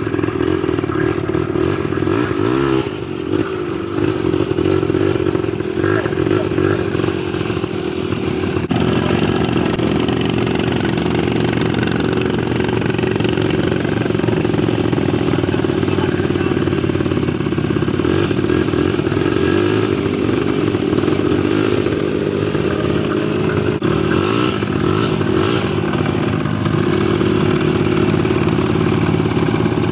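ATV engine running under load while riding over rough ground, its pitch shifting with the throttle, with rattling from the machine over the bumps.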